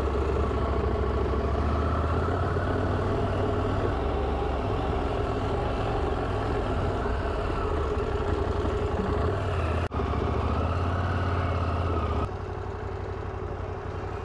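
KTM Adventure motorcycle engine running at a steady pace while riding. The sound drops out briefly about ten seconds in and turns quieter about two seconds later.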